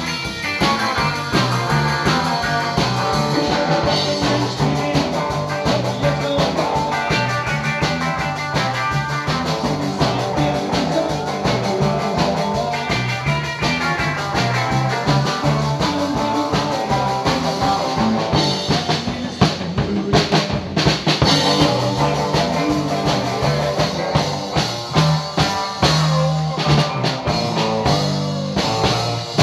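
A live band playing rock music on electric guitar, electric bass and drum kit, with cymbals and snare hits.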